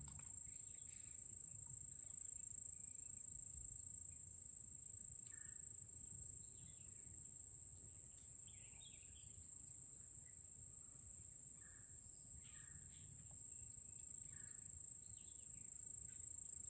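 Faint swamp ambience: a steady high-pitched insect drone throughout, with scattered short bird chirps.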